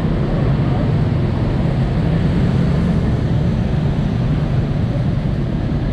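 Steady low rumble of motorbike traffic and running engines on a city street.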